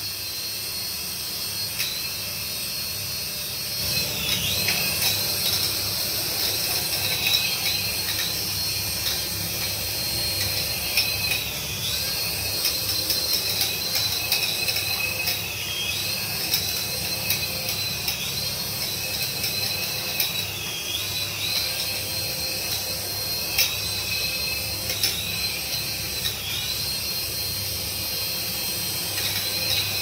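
Small toy coaxial RC helicopter's electric rotor motors whining as it flies, the high pitch dipping briefly and climbing back several times, with occasional sharp clicks.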